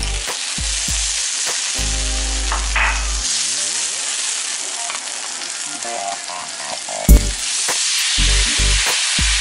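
Meat sizzling loudly and steadily on a hot teppan griddle. The sizzle starts suddenly as the pieces hit the plate and carries on as shredded cabbage and other ingredients are tipped on near the end. There is one sharp clack about seven seconds in.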